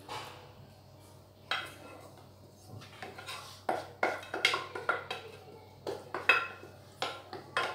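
A metal utensil scraping and clinking against an enamel saucepan as the last of a filling is scooped out, in a string of irregular sharp clicks and scrapes that starts about one and a half seconds in and comes more often after three seconds.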